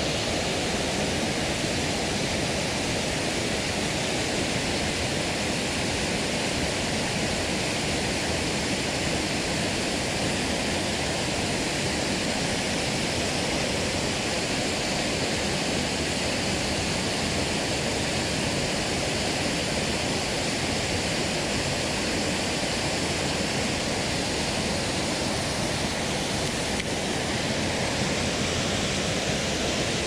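Mountain stream water rushing over rocks: a steady, even rush of moving water with no break.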